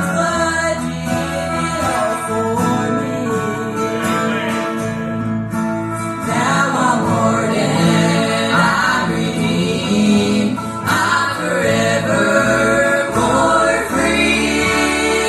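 Live gospel singing by a vocal group with instrumental accompaniment, continuous and steady in loudness.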